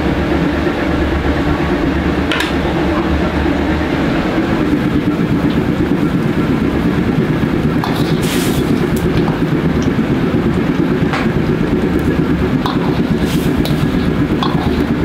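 Gas wok burner running steadily under a wok of boiling broth, with a few sharp metal clinks of a ladle against the wok.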